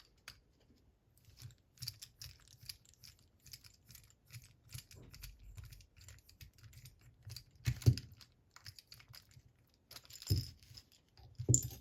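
Small metal parts of a Bramah-style pump lock and a homemade socket being handled and worked loose: quiet clicks, ticks and light scrapes, with a few louder knocks near the end.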